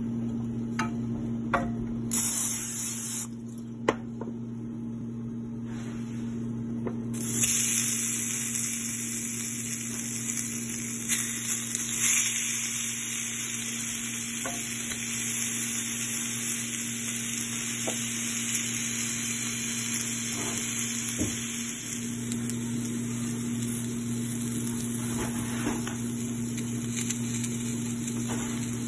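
Patties sizzling in an oiled cast-iron grill pan: a steady hiss that grows stronger about seven seconds in, with occasional light clicks and knocks against the pan. A steady low hum runs underneath.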